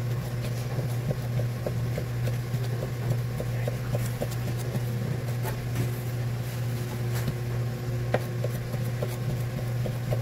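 Knife slicing raw gizzard shad fillets into thin strips on a cutting board, a light tick with each cut, roughly one or two a second. Under it runs a steady low mechanical hum.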